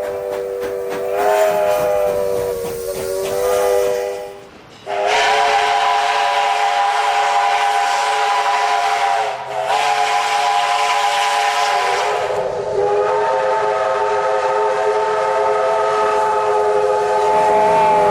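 Steam locomotive's multi-note chime whistle sounding over steam hiss. The first blast wavers in pitch, then after a brief break come long steady blasts. The chord changes slightly about twelve seconds in.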